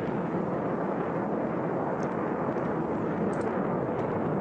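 HAL Tejas fighter's General Electric F404 afterburning turbofan, a steady jet rumble as the aircraft climbs in the vertical.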